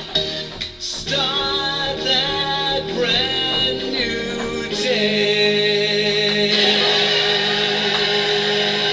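Upbeat children's dance song with singing, ending on a long held final chord from about five seconds in.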